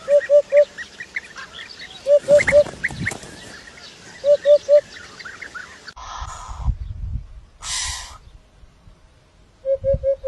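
A bird calling in quick groups of three short, clear notes, repeated about every two seconds over other small birds chirping. About halfway through the chirping stops and two brief bursts of noise follow, and near the end the call comes back as four quick notes.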